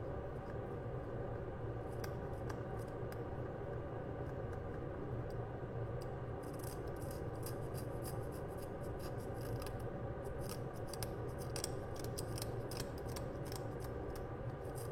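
A blade scraping and cutting away the CPU layer of an iPhone X A11 chip package to free the RAM: short scratchy ticks that come thick and fast from about halfway in, over a steady low hum.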